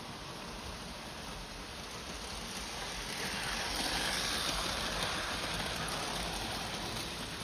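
Vintage Märklin model train running past on metal M-track: a steady rushing rattle of wheels and motor that swells as it passes close, loudest about four seconds in, then eases.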